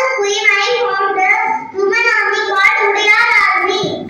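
A young child singing solo into a stage microphone, unaccompanied, in held, gliding phrases with a brief breath about halfway through.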